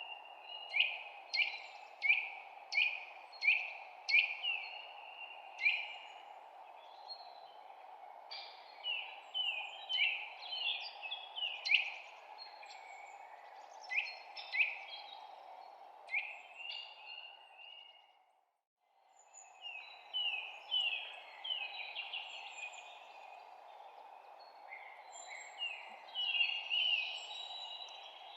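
Songbirds chirping and singing: a quick run of repeated short, falling notes in the first few seconds, then scattered chirps and twitters, over a steady rushing background. Everything fades out for about a second about two-thirds of the way through, then resumes.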